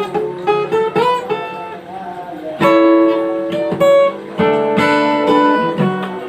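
Acoustic guitar music: single plucked notes at first, then louder strummed chords from a little under three seconds in.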